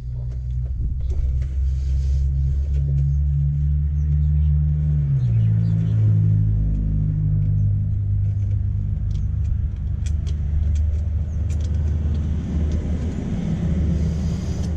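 An engine running steadily with a low rumble. Its pitch steps down about five seconds in. A few light clicks come over it later.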